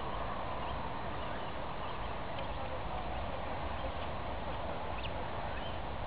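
Faint, scattered calls of waterbirds over a steady wash of wind noise on the microphone.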